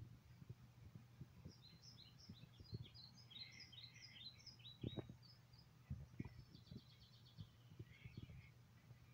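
Faint birdsong, quick high chirps and a short trill, played through a laptop speaker from a woodland nature video, with scattered soft low thumps.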